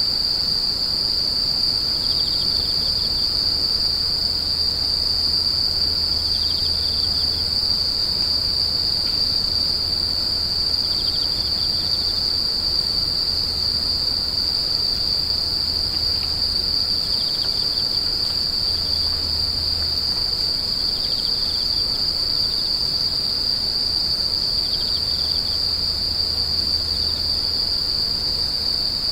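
Grass insects trilling: one unbroken, high-pitched trill, with a short, lower chirp from another insect repeating about every four seconds.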